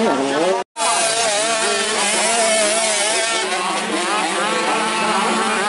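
Two-stroke motocross bike engines revving up and down over and over as riders accelerate and shift through the corners. The sound cuts out completely for an instant less than a second in.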